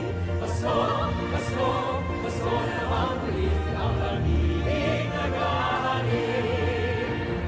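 Live concert music: a male vocal ensemble singing a Christmas song in harmony, with vibrato, over instrumental accompaniment.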